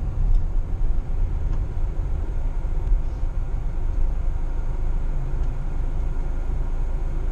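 Car in motion heard from inside its cabin: a steady low rumble of engine and road noise.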